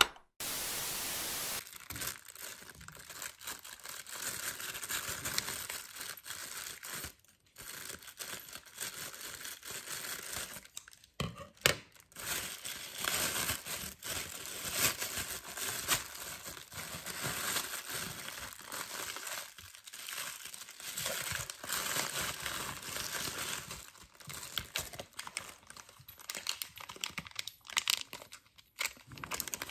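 Plastic packaging being torn open and handled: a grey plastic courier mailer ripped and crumpled, then small plastic product bags crinkling between the fingers, in irregular rustles and sharp crackles. About a second of steady hiss comes near the start.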